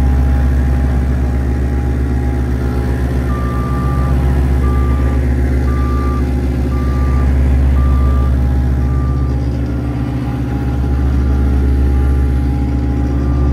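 Engine of a ride-on roller running steadily as it rolls a bed of stone flat. From about three seconds in, its reversing alarm beeps about once a second.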